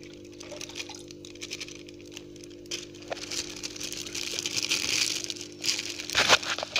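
A plastic fish bag being emptied into a plastic jar: water running in and the bag rustling and crinkling, with the noise swelling about halfway through and a few sharp crackles near the end.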